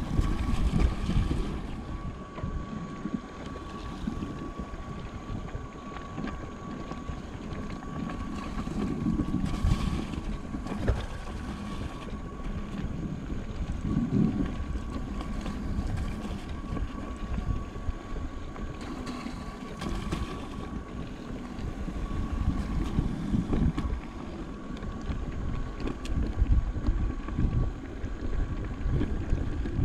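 Wind buffeting a handlebar-mounted camera over the rumble and rattle of an electric mountain bike rolling along a rocky dirt singletrack, with occasional knocks from bumps and a faint steady high whine underneath.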